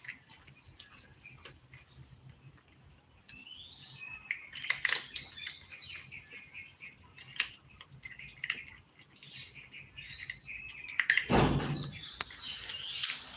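Steady high-pitched drone of insects such as crickets, with many short bird chirps over it and one brief low thump or rustle near the end.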